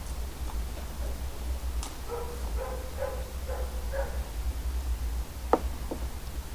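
A dog whimpering in a run of about six short high yips, followed by two sharp clicks near the end, over a steady low hum.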